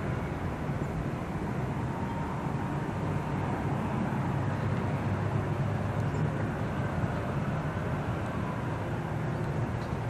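Steady low rumble of distant vehicle traffic, swelling slightly midway.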